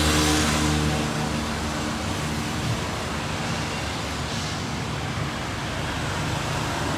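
Street traffic: an engine passes near the start and fades out within about a second, leaving a steady traffic hum.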